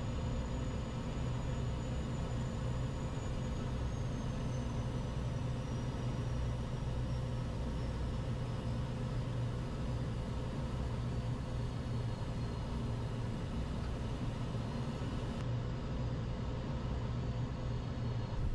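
Steady low hum inside a HondaJet's cockpit on final approach, from airflow and its two GE Honda HF120 turbofans, with a faint high engine whine that slowly drops in pitch as power comes back for the landing.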